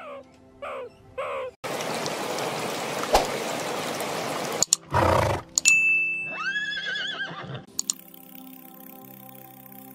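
A horse whinnying: a high held squeal breaking into a quavering call about six to seven and a half seconds in, over background music. Earlier there are three short falling calls, a stretch of hiss, and a short loud low burst about five seconds in.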